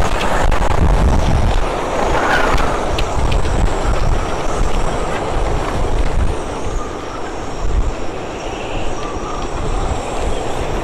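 Storm-force wind battering the microphone in gusts with a heavy low rumble, and driving rain hissing across the boats.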